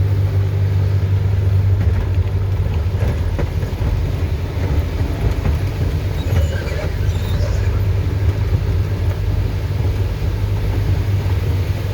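A vehicle's engine runs steadily with a constant low hum, heard from inside the cab while it drives a rough gravel dirt road. Scattered small rattles and knocks sit over the engine noise.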